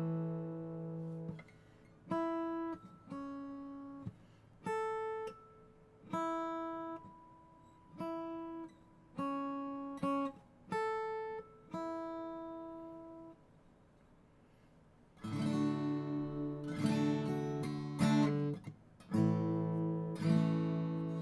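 Fender CD60CE cutaway dreadnought acoustic guitar in standard tuning with Ernie Ball Earthwood Extra Light strings. It opens with a ringing chord, then single picked notes and two-note phrases each left to ring out, a short pause, and strummed chords from about 15 seconds in.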